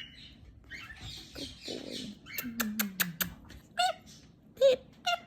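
Galah cockatoo giving a few short, pitched beeping calls in its car-horn imitation, after a quick run of sharp clicks.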